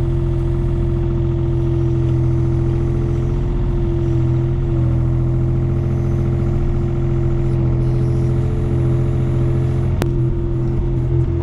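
Diesel engine of a Takeuchi TB235-2 mini excavator running steadily as the arm and bucket dig, heard from inside the cab, with a steady whine over the engine's rumble. A single sharp click about ten seconds in.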